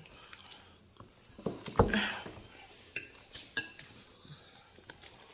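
Metal spoon clinking and scraping against a ceramic plate: several separate light knocks, the loudest just under two seconds in, followed by a short scrape.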